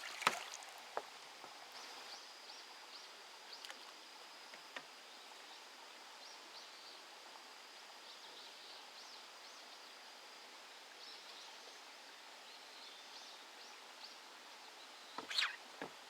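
Faint outdoor ambience with a steady high-pitched insect call for the first ten seconds or so, scattered small clicks, and a brief cluster of louder knocks near the end.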